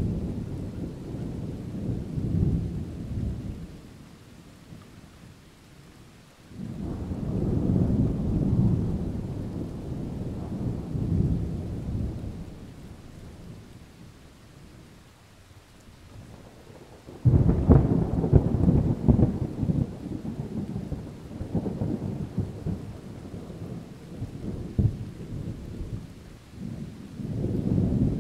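Distant thunder, a run of long, low rolling rumbles. One fades over the first few seconds and another swells about six seconds in. The loudest breaks sharply about seventeen seconds in and rolls on, and a further swell builds near the end.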